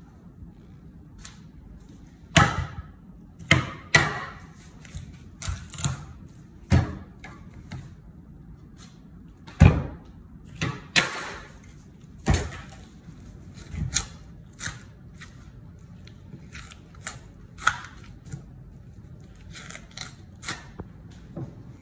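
Raw lamb and a large knife being worked on a wooden butcher block: irregular knocks and slaps of meat and blade against the board, loudest about ten seconds in.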